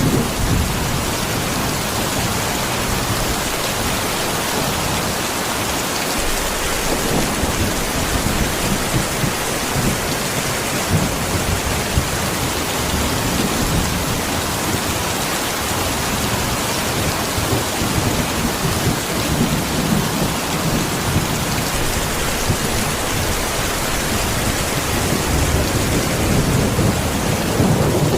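Steady rain-like hiss with irregular low rumbles underneath.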